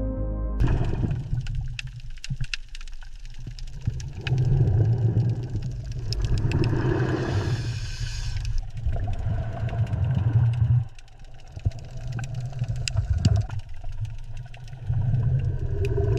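A deep, mechanical-sounding rumble that swells and drops unevenly, with many sharp clicks through it and a brief hissing swell about halfway through.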